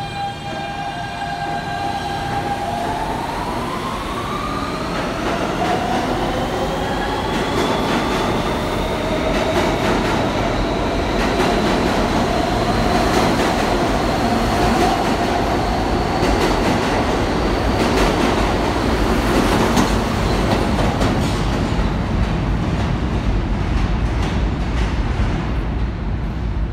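A New York City R160B subway train with Siemens propulsion pulls out of the station. Its traction motors give a steady whine and then several tones that rise in pitch together as it picks up speed. The wheels then rumble and clatter over the rail joints as the cars pass, growing louder toward the middle and thinning out near the end.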